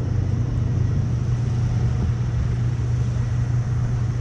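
Large outdoor cooling fan running with a steady low hum and the even rush of its air.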